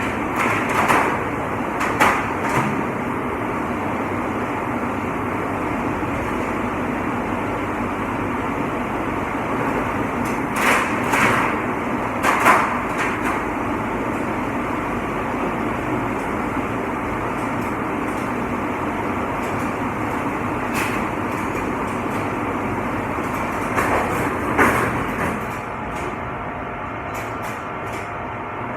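Steady running noise of a commercial dishwashing machine, with dishes and trays clattering now and then: a few sharp knocks about half a second in, near 2 s, twice around 11 to 12 seconds, and again near 25 seconds.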